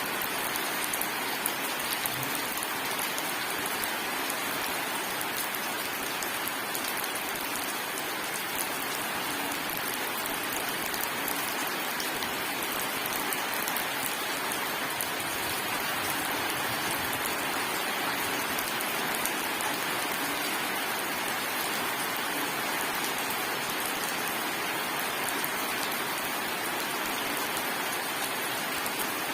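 Steady rain falling, an even hiss of drops striking surfaces with fine pattering ticks, with no thunder.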